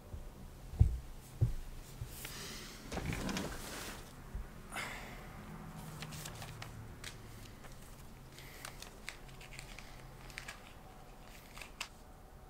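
Two dull thumps about a second in, then paper rustling and tearing as an envelope is torn open, followed by small crinkles as a handwritten letter is handled.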